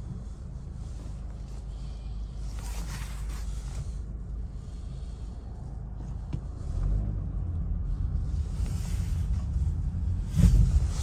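2012 Honda Civic cabin noise while driving: a steady low engine and road rumble that gets louder about seven seconds in. Several short bursts of jacket rustling against the microphone, and a thump near the end.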